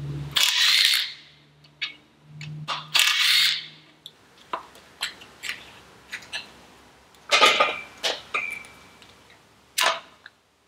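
Power driver running in two short spells in the first four seconds, spinning out the bolts of an outboard's water pump housing. Then scattered clicks and sharp metal clinks as bolts and parts are handled and set down, the loudest a little past halfway and near the end.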